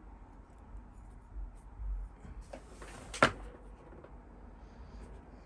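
A few faint clicks, then a single sharp knock about three seconds in, as small model-kit parts and tools are handled on a work surface.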